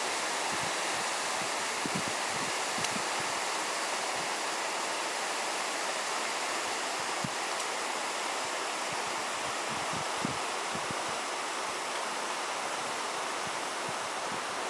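Steady rushing noise with scattered brief low bumps.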